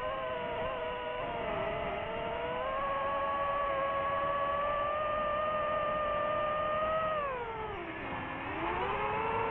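DJI FPV drone's electric motors and propellers whining at a steady pitch, dropping sharply about seven seconds in as the throttle is backed off, then climbing again.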